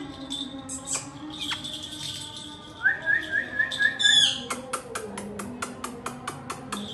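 Indian ringneck parakeet giving a run of about six quick rising chirps, then a falling whistle, then a fast series of sharp clicks at about seven a second.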